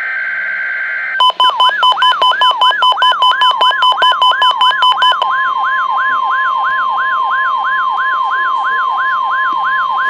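A SAME digital header burst ends about a second in. The steady 1050 Hz NOAA Weather Radio warning alarm tone follows. A weather-radio receiver's alarm sounds over it: a harsh beeping about four times a second that stops about five seconds in, and a rapid, repeating up-sweeping warble that continues.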